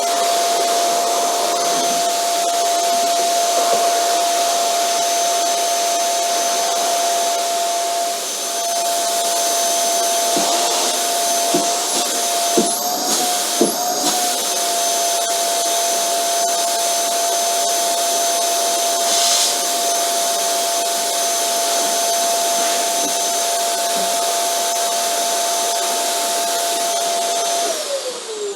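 Vacuum cleaner running steadily: a hissing rush of air under a steady motor whine. A few knocks come about halfway through, and near the end the motor's pitch drops briefly.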